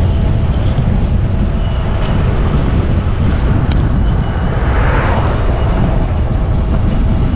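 Steady low rumble of wind on the microphone of a moving bicycle. An oncoming pickup truck passes about five seconds in, its noise swelling and fading.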